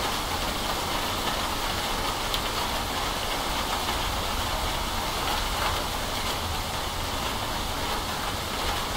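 Steady rain falling: an even hiss with a couple of faint ticks of drops.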